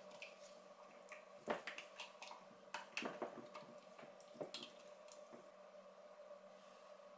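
Spatula stirring thick raw soap batter in a glass beaker: faint, irregular squelches with light scrapes and taps against the glass. The stirring stops about five and a half seconds in, leaving a steady faint hum.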